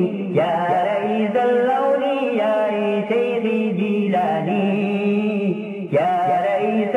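Islamic devotional qaseeda being chanted: voices sing a melodic refrain in long, wavering phrases, with brief breaths between them.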